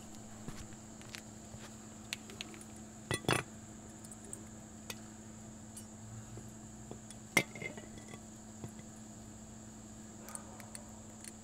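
Scattered metallic clinks and knocks of tools and brake parts being handled, loudest a quick double knock about three seconds in and a sharp clink past the middle, over a faint steady hum.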